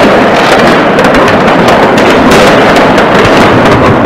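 Fireworks and firecrackers going off all across a town, many overlapping bangs and crackles running together into one continuous barrage.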